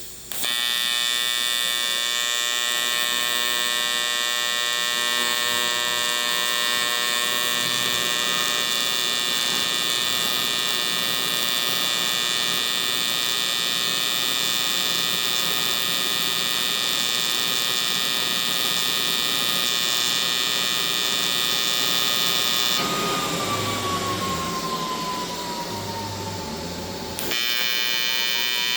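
AC TIG welding arc on aluminium, giving a steady, loud electric buzz. Near the end the buzz gives way to a hiss for a few seconds, then starts again.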